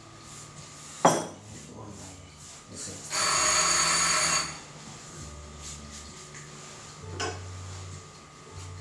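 Kitchen counter handling: a sharp knock about a second in, then a loud rasping scrape lasting just over a second near the middle, with lighter handling noises around it.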